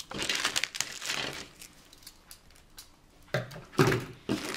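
Clear plastic bag of model-kit parts crinkling as it is slit open with a pocket knife and handled. It goes quieter in the middle, with a few small clicks, then a louder rustle of handling noise near the end.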